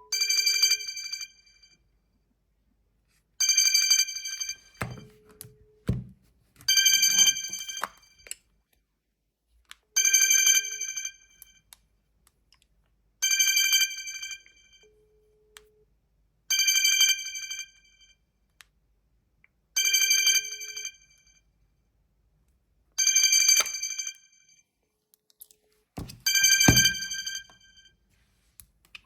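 Phone ringtone of a classic ringing telephone bell, sounding in bursts of about a second that repeat about every three seconds. A few dull thumps come in between, around five seconds in and near the end.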